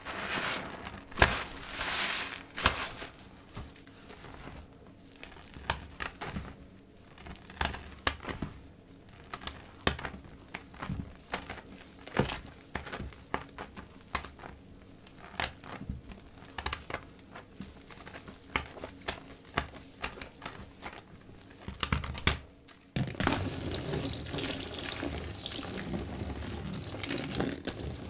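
Soap-soaked kitchen sponges squeezed and kneaded by hand in a basin of thick foam: irregular wet squelches and many small crackles of bursting bubbles. About 23 seconds in, this gives way suddenly to a steady stream of tap water pouring onto a foamy blue sponge in the basin.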